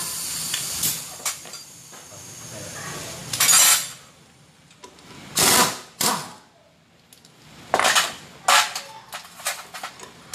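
Metal tools and parts clinking and clattering in several short bursts, after a hiss that fades out in the first second.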